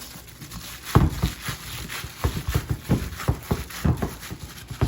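Gloved hand mixing ground chicken filling with onion and spices in a bowl: a run of soft, irregular thumps, about three a second, starting about a second in.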